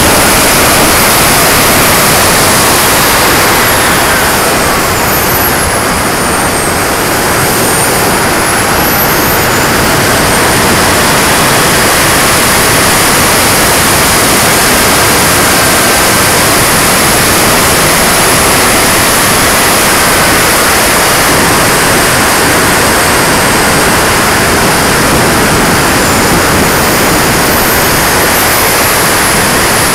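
Turbine-powered RC jet in flight, heard from a camera on its own airframe: a loud, steady rush of wind and engine noise. A thin high turbine whine falls and rises again about a quarter of the way through, and dips once more near the end.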